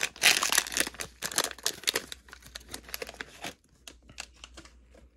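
Plastic wrapper of a 2023 Prizm football value pack crinkling and tearing as it is ripped open, dense for about two seconds, then thinning to scattered faint crackles as the card stack is pulled out.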